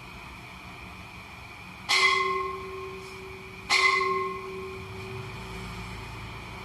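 Two ringing metal strikes, "teng teng", about two seconds apart, each fading away with a bell-like ring. This is a night security guard knocking on metal to mark the hour; two strikes signal two o'clock.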